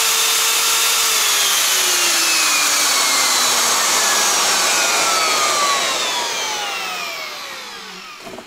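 Worx WU600 1500 W plunge router running free at full speed with a high whine and the rush of its cooling fan, then switched off about a second in and coasting down, its pitch and loudness falling steadily until it has nearly stopped near the end.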